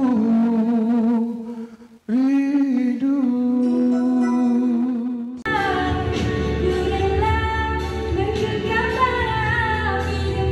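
A man singing two long held notes with vibrato, the voice briefly dropping away about two seconds in. About halfway through the sound cuts abruptly to a woman singing over backing music with a steady bass line.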